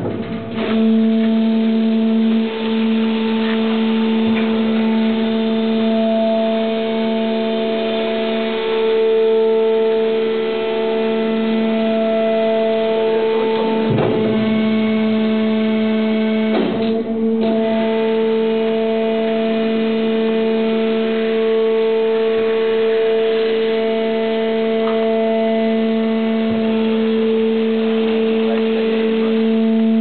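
Waste baler's hydraulic power unit running with a steady, unchanging hum with overtones while the ram moves through the chamber. Two clunks come about halfway through.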